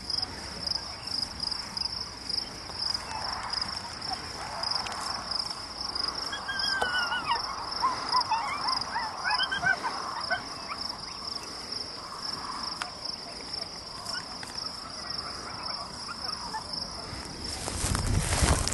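Insects calling in a steady, pulsing, high-pitched chorus, with a few short chirps in the middle. Wind buffets the microphone near the end.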